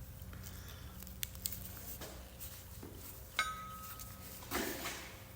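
Faint handling noises, a few light clicks and taps with a short metallic ring about three and a half seconds in and a brief rustle near the end, over a steady low hum.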